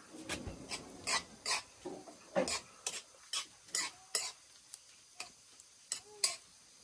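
A spoon scraping and stirring corned beef as it fries in a pan over a wood fire: a string of short scrapes, about two a second.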